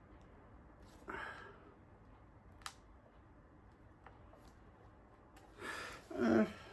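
Quiet handling of a laptop and small tools: one sharp click partway through and a faint tick later, between a person's sighs and breaths, one near the start and a louder one with a short grunt near the end.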